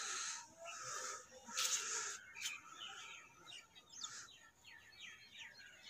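Birds calling faintly: a few short noisy calls in the first two seconds, then a run of quick, high chirps, about five a second.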